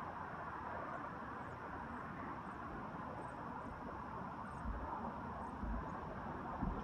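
Steady rushing background noise, with a few faint low thumps near the end.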